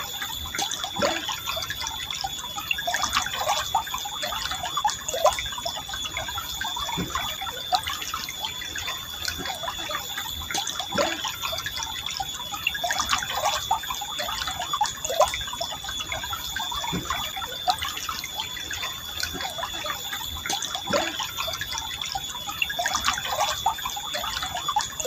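Forest river water flowing, gurgling steadily with many small plops and drips.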